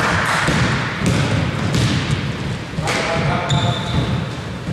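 Basketball bouncing and thudding on a gym court during play, repeated dull thuds over a general hall noise. A steady high tone comes in near the end.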